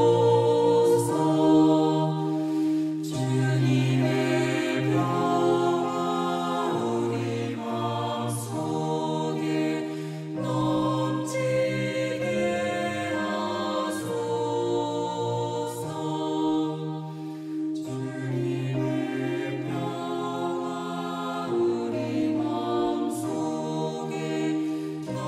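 Slow, meditative choral music: voices holding sustained chords that change every second or two over a low bass line.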